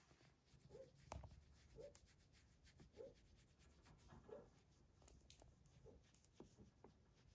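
Faint rubbing of fingers scratching a cat's chin fur, with soft short sounds about once a second and a few light clicks.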